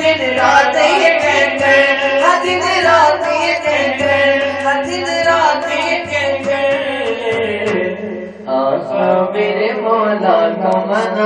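Male voice singing an Urdu naat in a drawn-out melodic line over a steady held drone, amplified through a microphone.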